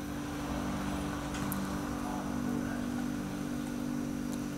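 Steady low mechanical hum made of several fixed tones, with one faint light tick about one and a half seconds in.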